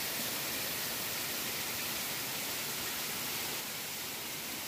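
Steady rushing of a mountain river, the Mandakini, heard as an even hiss with no breaks.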